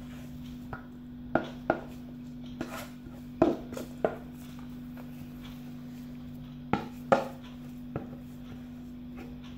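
Wooden spoon knocking and scraping against a metal pan as mashed potatoes are scraped out into a plastic mixing bowl: a handful of irregular taps, over a steady low hum.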